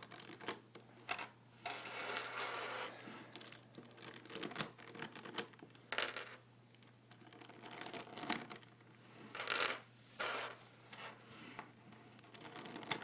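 Plastic pieces of a 5x5 Rubik's cube clicking and clattering as they are pulled out and fall apart, with a few short scraping sounds among the clicks.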